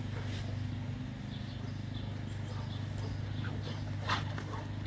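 A Boerboel and a Serbian defense dog play-wrestling on grass: scuffling, paw steps and breathing, with one short sharp noise about four seconds in as they rear up against each other. A steady low hum runs underneath.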